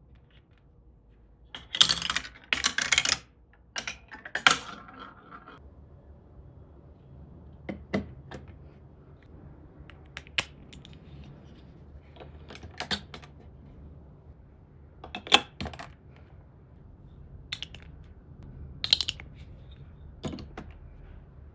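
Plastic building bricks clicking and clattering as pieces are handled and pressed together. A quick run of clatter about two seconds in, then single sharp clicks every two or three seconds.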